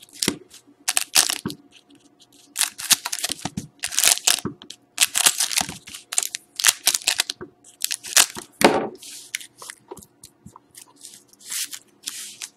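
Scissors snipping open trading-card pack wrappers, with the wrappers crinkling and rustling as they are handled: a run of many short, sharp, irregular snips and crackles.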